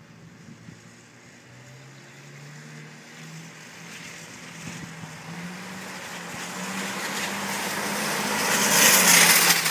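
Black Ford Mustang towing a shopping cart with a rider, approaching and driving past close by. Its engine note climbs a little as it speeds up, and the sound grows steadily louder, with a rush of tyre and wheel noise that peaks as it goes by near the end.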